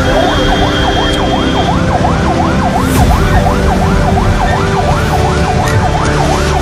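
Ambulance siren in a fast yelp, its pitch sweeping up and down about three times a second, heard from inside the ambulance over the engine and road rumble.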